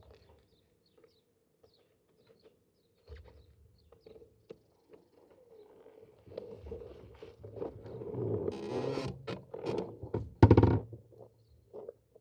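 Scattered small clicks and handling noises, growing busier with rustling and knocks from about six seconds in, with one loud thump about ten and a half seconds in; no engine running.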